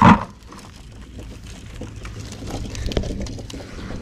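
A short loud knock right at the start, then soft rustling and faint clicking of a nylon cast net and its lead weights being gathered and handled, over a steady low rumble.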